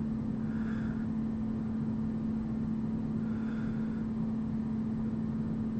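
A steady low hum at one pitch over a soft, even hiss: constant background noise from the room or the recording setup, with no distinct event.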